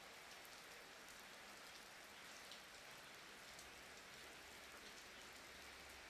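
Near silence: a faint steady hiss with a few faint crackles.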